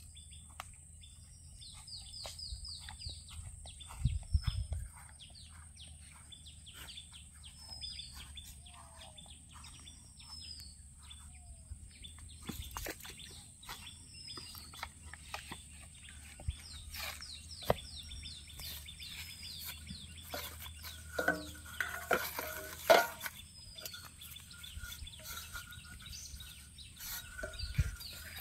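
Small birds chirping in repeated short, falling whistled notes over a steady high hiss. A couple of low thumps come about four seconds in and near the end, and a louder pitched sound rises about three-quarters of the way through.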